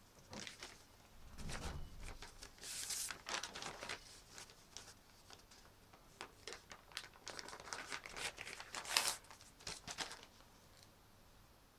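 Rustling and crinkling handling noise in a small room, in irregular bursts, loudest near the end.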